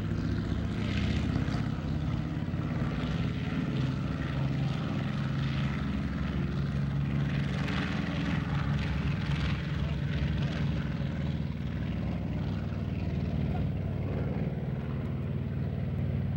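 North American B-25 Mitchell's two Wright R-2600 radial engines running at takeoff power through the takeoff roll and lift-off: a steady low engine note with a rapid crackle on top.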